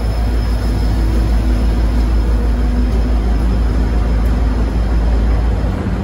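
Diesel-electric locomotive's EMD two-stroke V12 engine working under load as it pulls away close by, a loud, steady low rumble. Near the end it eases slightly as the locomotive moves off and the passenger carriages roll past.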